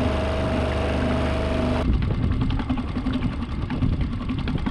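Small 3.5 hp outboard motor running steadily at low speed while pushing the sailboat. About two seconds in, the steady tone cuts abruptly to an uneven low rumble with wind buffeting the microphone.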